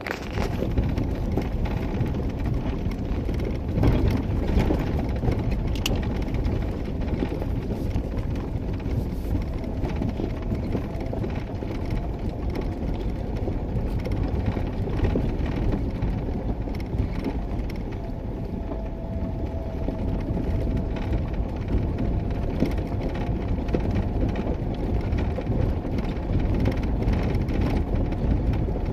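A Jeep Wrangler JK driving along a rough dirt track, heard from inside the cab: the engine runs with tyre and road noise, a steady low rumble.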